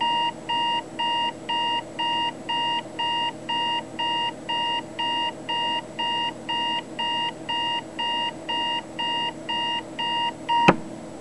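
Cosmo Time alarm clock's alarm beeping, short high beeps about two a second at an even rhythm, until a sharp click near the end cuts it off.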